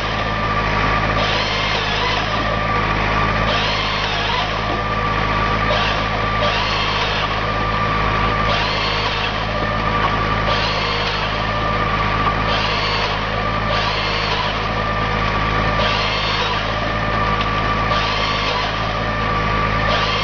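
Tractor engine running steadily with a machine driven off it, with a steady whine and a hissing surge that comes back about every two seconds.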